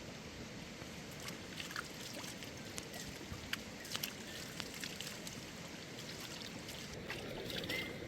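Steady rush of flowing water, with scattered sharp clicks and snaps over it and a brief louder stretch near the end.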